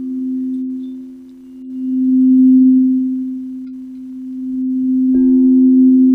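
Singing bowls ringing with two steady low tones that swell and fade in slow waves. About five seconds in, a bowl is struck, adding a higher ringing tone.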